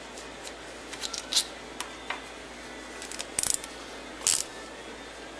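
Small ratcheting wrench loosening the 5/16 screws of a Walbro square fuel pump: scattered light metal clicks and a few short ratcheting rasps.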